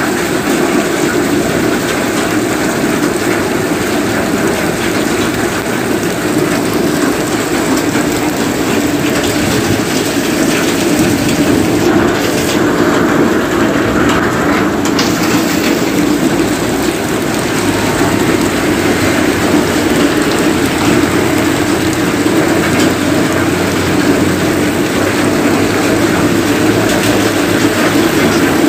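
Heavy rain falling steadily on a wet street and pavement.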